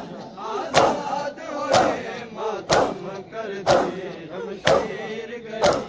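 A crowd of men beating their chests in unison (matam), a loud slap about once a second, with chanting voices between the beats.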